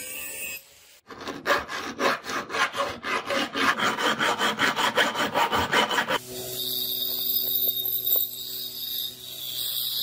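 Hand file rasping over a small steel part in quick, even strokes, about five a second, for roughly five seconds. A brief grinding wheel on steel comes before it, and after it a powered belt grinder runs steadily with a low hum and a high hiss.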